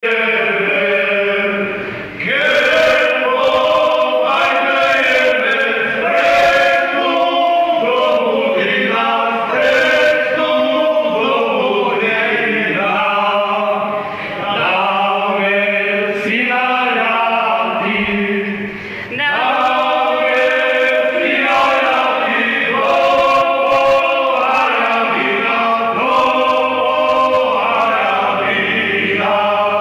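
A folk ensemble singing a song together in chorus, many voices at once, with short breaks between phrases about two seconds in and again around the middle.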